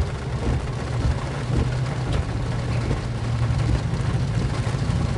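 Road noise inside a moving car on a rain-wet road: a steady low hum of engine and tyres under an even hiss of rain and tyre spray.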